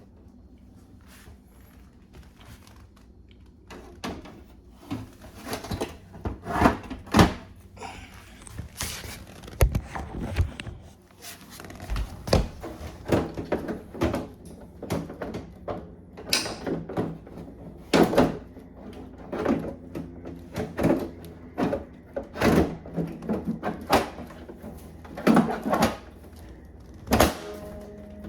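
Irregular knocks, clicks and clunks of the Alienware Aurora R14's side panel being handled and fitted back onto the case, starting a few seconds in.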